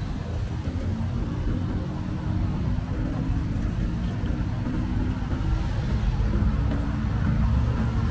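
Steady low rumble of road traffic and wind on the microphone, heard from a moving bicycle.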